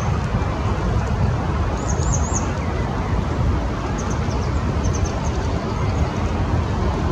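Steady low outdoor rumble, with a small bird's high, thin chirps: a quick run of notes about two seconds in and a few scattered notes from about four to five seconds.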